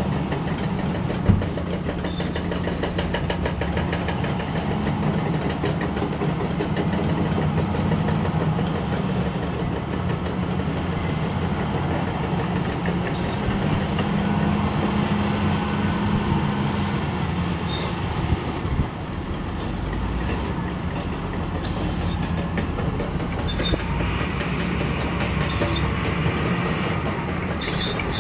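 Heavy diesel mining machinery running steadily, a constant engine drone with a sharp knock about a second in and another past the middle.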